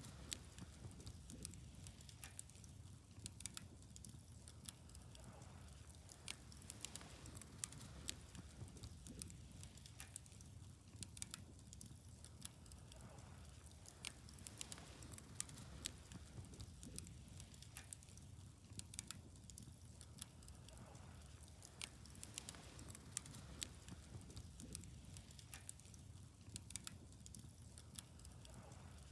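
Wood bonfire crackling, with frequent irregular sharp pops over a low steady rumble.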